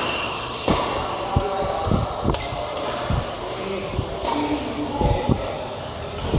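Badminton rally: racket strings hitting the shuttlecock in a series of sharp, irregularly spaced knocks, mixed with players' shoes thudding on the court.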